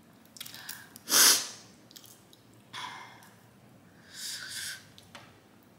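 A woman's sharp, noisy sniffs and breaths, three of them, the loudest about a second in: the runny nose of eating spicy boiled crawfish. Faint clicks of crawfish shells being peeled by hand fall between them.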